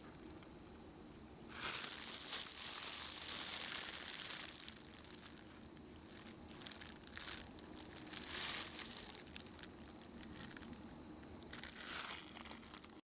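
Irregular bursts of rustling, crinkling noise, the longest in the first few seconds and shorter ones later, over a faint steady high-pitched tone.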